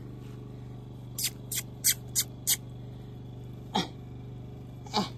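Mini Aussiedoodle puppies making a quick run of five short snuffles, then two brief yips that drop sharply in pitch, over a steady low hum.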